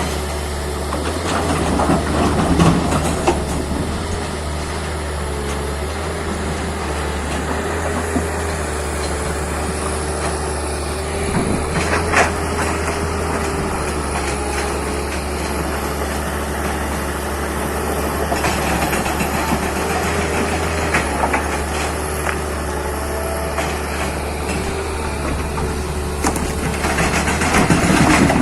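Tata Hitachi 200 excavator's diesel engine running steadily, with a few sharp knocks along the way, getting louder near the end.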